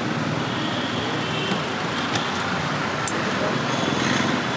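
Steady roadside traffic noise, with two sharp clicks about a second apart near the middle.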